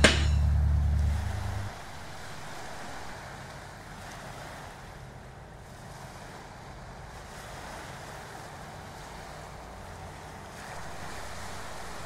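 Music stops about a second and a half in, leaving a steady hiss of small waves washing onto a sandy beach.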